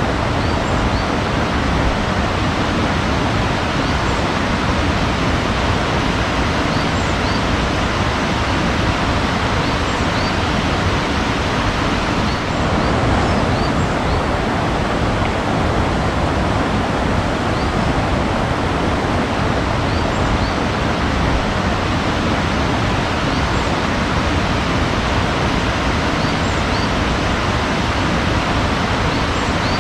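Steady rush of flowing water, like a waterfall or fast stream, with faint, brief bird chirps now and then.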